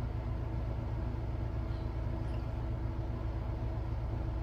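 Steady low hum with several fixed tones, unchanging throughout: the background drone of machinery running in the room.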